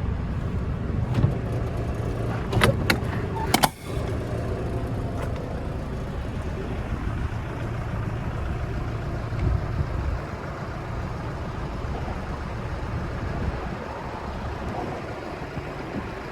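Renault Mascott 150.65's 3.0-litre diesel engine idling steadily, with a few sharp clicks and knocks about three seconds in.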